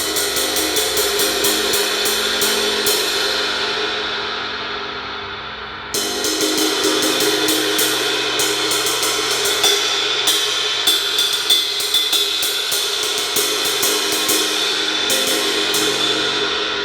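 A Paiste Twenty Series 20-inch light ride cymbal with a crack in its body, played in a quick, even run of strokes. It is left ringing down for about three seconds partway through, then played again, and it rings on at the end. To its player the cracked cymbal doesn't sound too bad.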